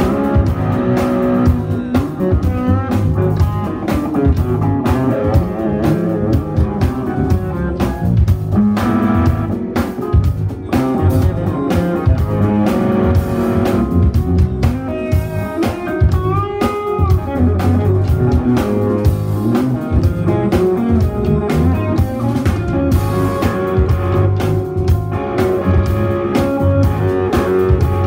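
Live jazz-fusion band: an electric guitar plays bending, wavering lead lines over electric bass and drum kit.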